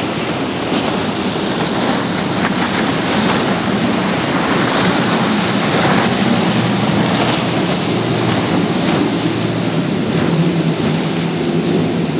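Waves and wind noise on the microphone, with the low steady drone of motorboat engines underneath that grows stronger over the last few seconds.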